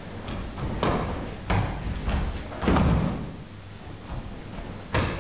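Several dull thumps and scuffs of bare feet and bodies on padded mats as two aikido practitioners move through a kotegaeshi wrist-turn throw. The loudest thump comes a little under three seconds in.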